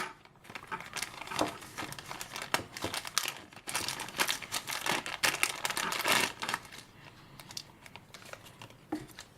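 Plastic bag crinkling in irregular bursts, with small clicks, as a small motor is handled inside it and its C-clip is worked off the shaft.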